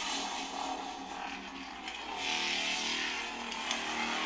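Lightsaber sound font playing through the saber's small built-in speaker: a steady buzzing blade hum just after ignition, swelling louder about two seconds in.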